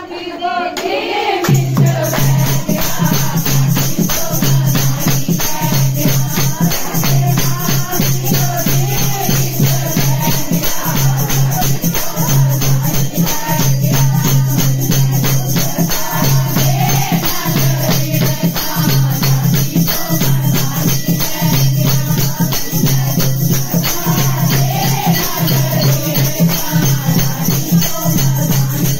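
Group of women singing a Dogri devotional song to a steady beat of rattling percussion and hand-clapping, starting about a second and a half in.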